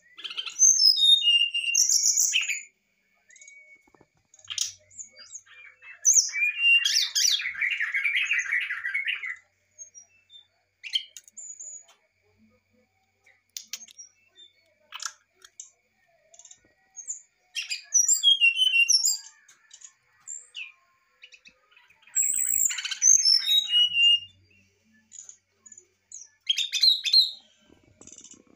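Brown-chested jungle flycatcher singing in short, varied phrases of fluting whistles, many sliding downward in pitch, separated by pauses and single chips. One longer, harsher buzzy phrase comes about six seconds in.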